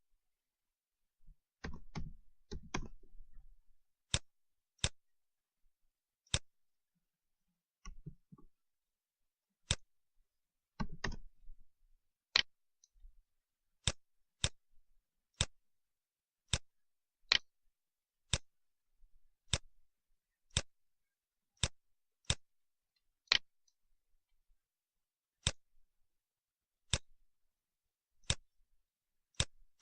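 Computer mouse buttons clicking: single sharp clicks, roughly one a second for much of the time, with short clatters of handling noise about two seconds in and again about eleven seconds in.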